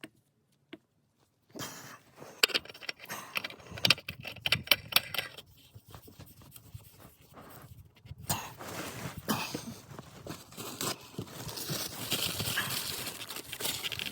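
Clinking, scraping and rustling of tools and parts being handled, with many sharp irregular clicks, beginning after a short silent moment; from about the middle it turns into a steadier rustle.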